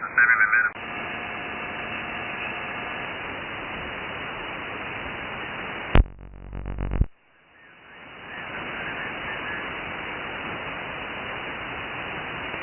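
Shortwave receiver audio from a software-defined radio (RTL2832U/R820T dongle with upconverter) being retuned: the end of a voice transmission, then steady band hiss with faint whistling carriers. About six seconds in there is a sharp click and a second of louder noise, then a brief dropout before the hiss swells back in, as the receiver switches from the 21 MHz band to 7 MHz.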